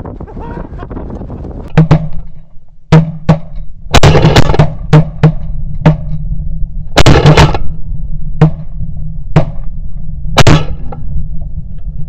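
Shotguns firing in a rapid, uneven volley: about a dozen sharp blasts, some overlapping, bunched most thickly around four and seven seconds in.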